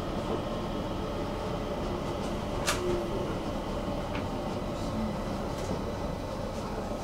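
Stockholm metro (tunnelbana) train running, a steady rumble of the ride heard from inside the car. A single sharp click sounds about three seconds in.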